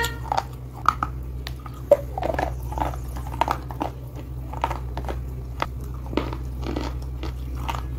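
Slate pieces being bitten and chewed: a run of sharp crunches and cracks, roughly two a second, over a steady low hum.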